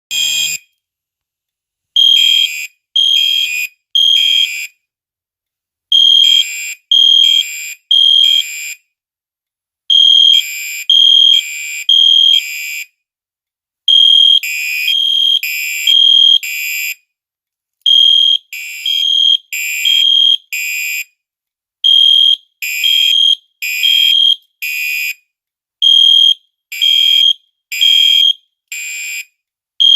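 Fire alarm sounding in the temporal-three evacuation pattern: groups of three high-pitched beeps, each about half a second long, with a pause of about one and a half seconds between groups.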